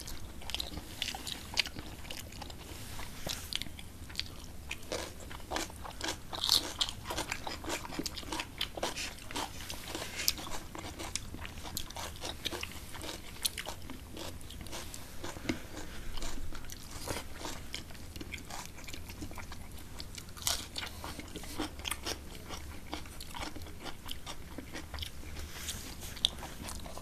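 Close-miked eating: two people chewing mouthfuls of rice and curry and working the rice with their fingers, making a steady run of short wet clicks and bites. A faint low hum runs underneath.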